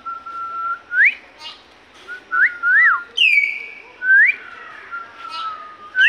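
Common hill mynas calling with clear whistles. Some notes are held steady and some slide sharply upward, and two loud, piercing calls drop steeply in pitch, about three seconds in and again at the end.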